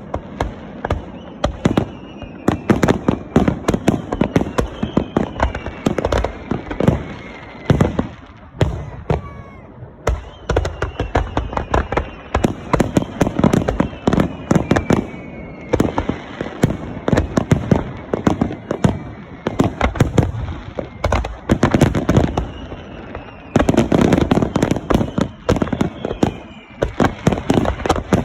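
Fireworks display finale: a dense barrage of shell bursts, several reports a second, with falling whistling tones sweeping down over them and a brief lull partway through.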